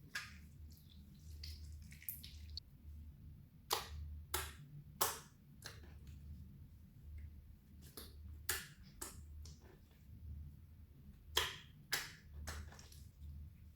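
Clear slime being kneaded and stretched by hand, giving irregular sticky pops and clicks, with several louder ones about four, five and eleven seconds in.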